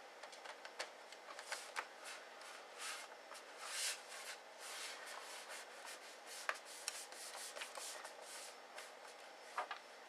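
Faint rubbing and scraping of hands sliding over the aluminium bottom case of a mid-2009 MacBook Pro as its small screws are set back in, with a few short clicks scattered through.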